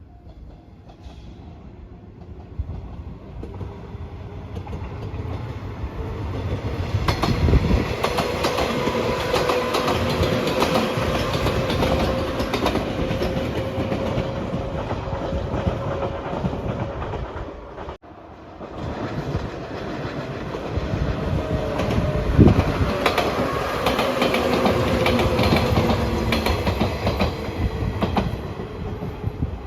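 A train passing close by, its wheels clattering over the rail joints, swelling up over several seconds to a loud, steady rumble. About two-thirds through, the sound cuts off abruptly and a second train pass follows, just as loud, fading near the end.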